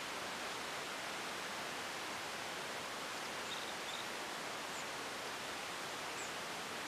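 Steady, even hiss of open-air background noise, with a few faint, short high chirps about halfway through and near the end.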